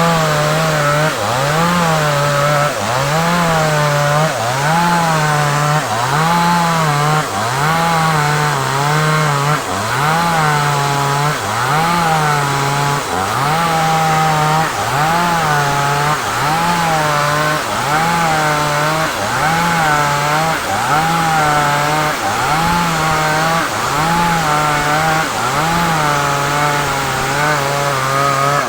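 Chainsaw at full throttle cutting through a large sengon log. The engine note dips under load and picks up again at an even rhythm of about once every second and a quarter, over the steady rasp of the chain in the wood.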